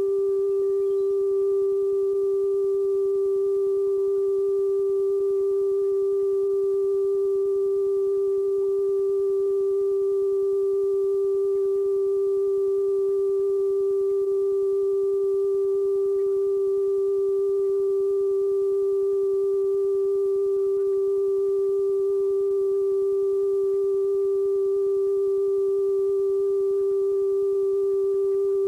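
Steady line-up test tone accompanying colour bars: one unbroken pitch with fainter higher overtones.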